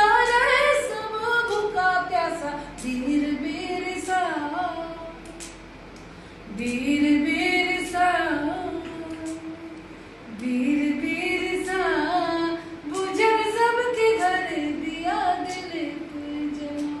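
A woman singing solo and unaccompanied, in long phrases of held notes that slide up and down, with short breaks for breath about six and ten seconds in.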